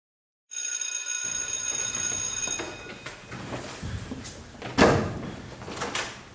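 A school bell rings with a loud, steady, clanging tone that starts suddenly and stops after about two seconds. Then desks and chairs knock and shuffle as students get up, with a sharp knock about five seconds in.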